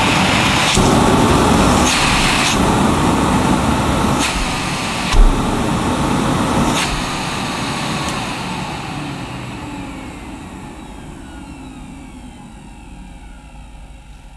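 Hoover Sensotronic System 3 cylinder vacuum cleaner running, with a few knocks and a louder thump about five seconds in. Over the second half its sound falls away gradually as the suction is blocked, the test that turns the sensor light from green to red.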